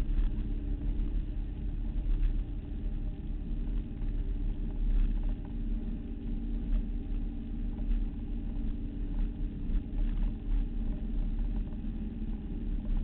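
Motorboat engine running steadily under way, a constant drone over a low rumble, with churning wake and water noise alongside.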